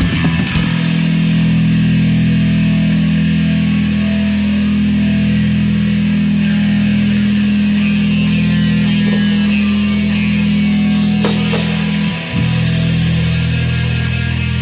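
Distorted electric guitar and bass holding a steady low drone after the drums stop, with a brief break about twelve seconds in.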